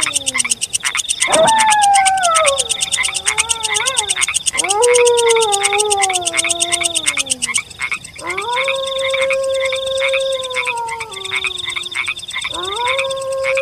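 Wolf howling: four long howls of about three seconds each, each sliding down in pitch toward its end, over a fast, steady pulsing night chorus.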